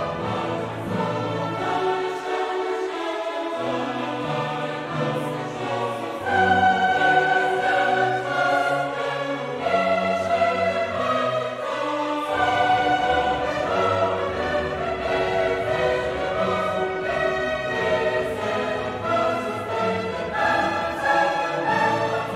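Background classical music: an orchestra playing with a choir singing held notes.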